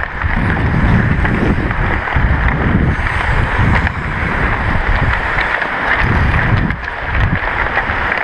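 Wind rushing over a body-worn camera's microphone while skating on a hockey rink, mixed with the hiss of skate blades on the ice. The low rumble swells and fades about once a second.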